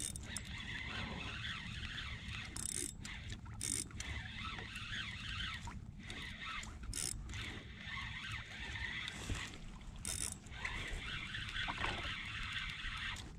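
Quiet handling noise on a kayak: a spinning reel being wound, with scattered small clicks and rubs.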